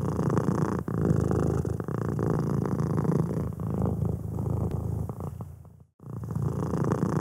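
Domestic cat purring, a steady rhythmic purr that fades out about five seconds in, breaks off for a moment near six seconds, then starts again.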